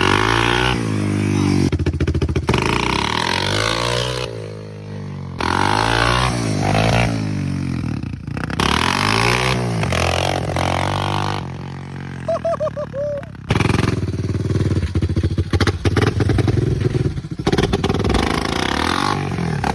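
Four-stroke Honda motorcycle engine revved up and down again and again, its pitch rising and falling with each blip, then running at a steadier speed for the last several seconds.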